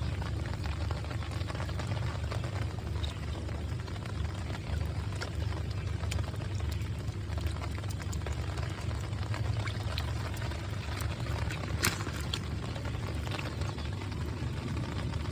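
Water sloshing and pouring, over a steady low rumble, with scattered sharp clicks; one click about twelve seconds in stands out.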